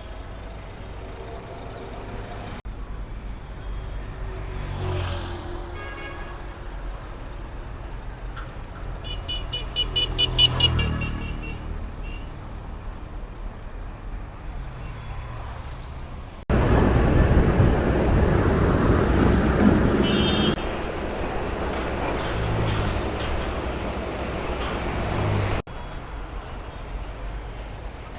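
Busy road traffic: engines and tyres rumbling past, with a car horn tooting about ten seconds in and a short horn blast again near twenty seconds. The rumble swells loudest for a few seconds past the middle as heavier traffic goes by close.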